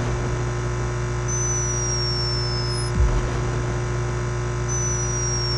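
A sleeping hummingbird snoring: a thin, high whistle that glides slightly down, once in the middle and again near the end, over a steady hum of camera microphone noise at raised sensitivity. A short low thump comes between the two whistles.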